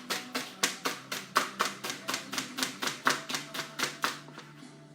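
Kitchen knife slicing vegetables thinly on a cutting board, a steady run of sharp chops at about four a second that stops shortly before the end.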